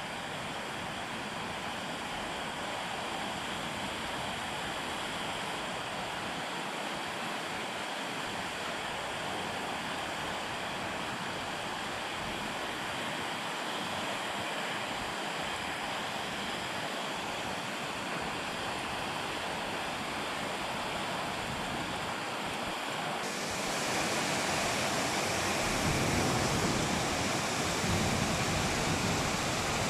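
Heavy monsoon-style rain pouring down in a steady hiss. About 23 seconds in the downpour grows louder and harsher, and gusts of wind rumble near the end.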